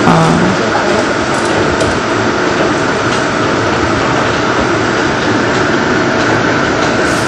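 Kitchen cooker hood exhaust fan running steadily, a loud, even rushing noise, with a few faint clinks of a stainless steel steamer lid.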